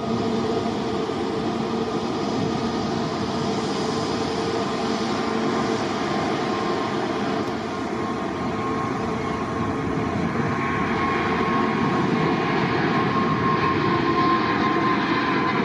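An airliner's jet engines running loud and steady as it passes, with a whine that slowly falls in pitch near the end.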